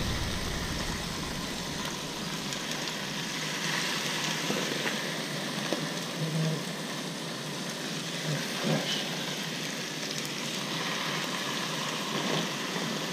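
Speckled trout fillet sizzling steadily in a hot frying pan greased with cooking spray, with a few faint clicks.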